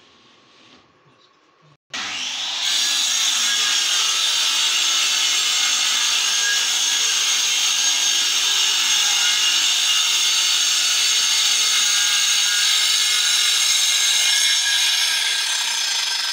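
Electric circular saw running on a rail jig and cutting through melamine-faced particleboard: a loud, steady whining cut that starts abruptly about two seconds in and holds without a break.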